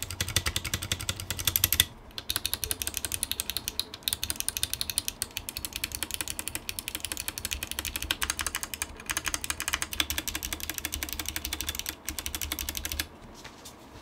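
Fast typing on a Drop CTRL mechanical keyboard with clicky Kailh BOX White switches: a dense run of sharp key clicks with short breaks, stopping about a second before the end.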